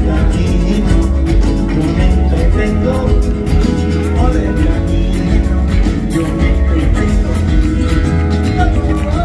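Live band playing a rumba: acoustic guitar over an upright bass, with a steady beat.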